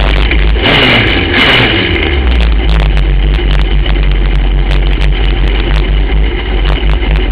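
Racing kart's engine running hard, heard from on board the kart, with many sharp clicks throughout. About a second in, a loud rush of noise joins it while the engine pitch falls, then the engine steadies.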